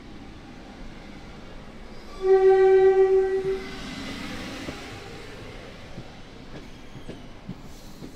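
A single blast on one steady pitch from the horn of the departing Intercity Mk3 train, sounded from the leading Mk3 Driving Van Trailer. It starts about two seconds in and lasts about a second and a half. Under it the train rumbles along, and near the end the wheels click over rail joints.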